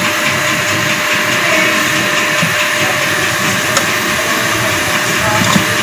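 Sliced onions and freshly added garlic-ginger paste sizzling in hot oil in a pot: a steady, even hiss.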